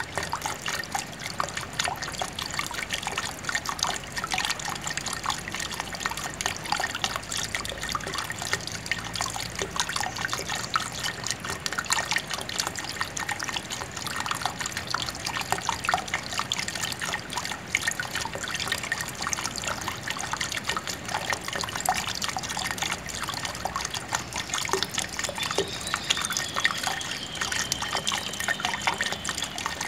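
Running water trickling and splashing steadily: a dense, even patter of small drips and splashes. A faint high, slightly falling tone sounds for a few seconds near the end.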